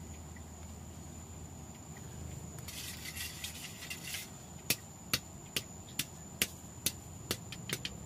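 Hand tools working wet concrete: a stretch of scraping, then a run of about eight sharp taps, a little over two a second. A steady high-pitched insect drone runs underneath.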